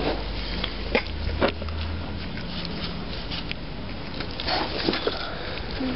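A tabby cat chewing and smacking on raw pumpkin close to the microphone: irregular soft clicks and wet smacks, over a low steady background hum.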